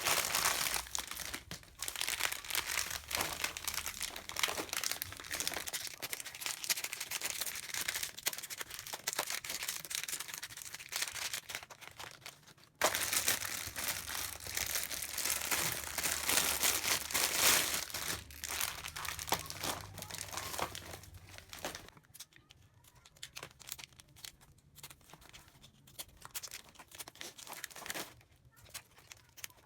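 Packaging crinkling and rustling as it is handled, with some tearing sounds. It breaks off abruptly about 13 seconds in, starts again, and thins out to occasional faint rustles over the last several seconds.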